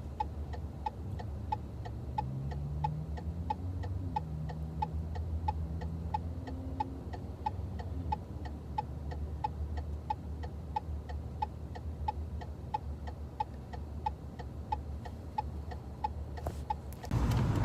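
Steady, even ticking, about three ticks a second, over a low steady hum. Near the end a louder rushing noise comes in.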